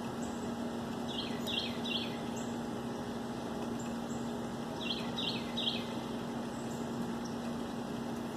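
A songbird singing two short phrases, each of three quick downward-slurred high chirps, about a second in and again about five seconds in, over a steady low hum and outdoor background noise.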